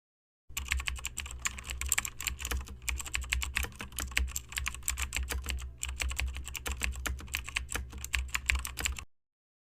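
Rapid, irregular clicking and tapping from hands handling the controls of a Sony SEQ-V715 graphic equalizer, over a low steady hum. It starts about half a second in and cuts off abruptly near the end.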